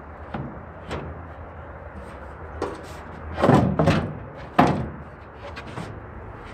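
Knocks and thumps on an aluminum truck toolbox as the plywood reinforcement is worked in. There are light knocks at first, then three loud thumps about three and a half to four and a half seconds in, then a few light taps.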